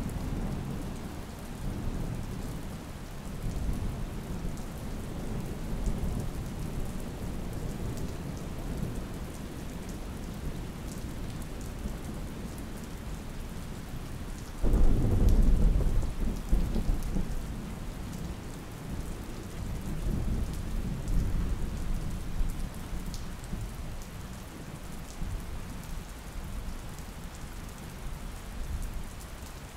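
Thunderstorm: steady rain with rolling thunder rumbling in the background. About halfway through, a sudden thunderclap breaks into a loud rumble that dies away over several seconds.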